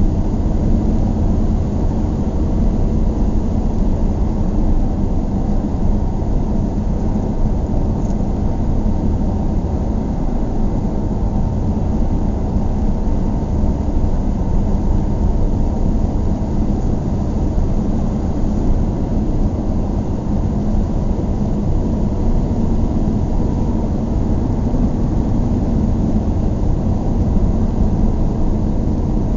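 Steady low rumble of a car being driven, heard from inside the cabin: engine and road noise at an even speed.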